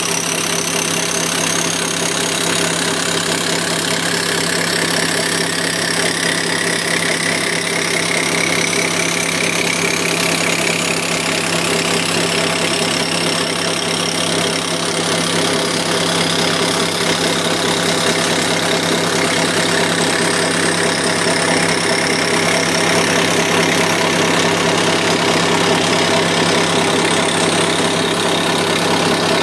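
Torrington 433 rotary swager running steadily with a continuous, rapid hammering hum as it swages an outer copper tube onto an inner tube. A faint high whine slowly rises in pitch throughout.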